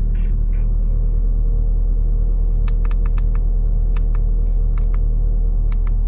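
Mitsubishi Eclipse 2.4-litre four-cylinder engine idling steadily, with a run of light, irregular clicks over the second half.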